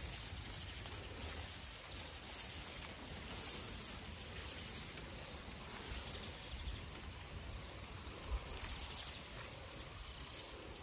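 Dry, bearded grain stalks rustling and swishing as they are picked by hand and gathered into a bundle, in soft rustles about once a second, over a low rumble of wind on the microphone.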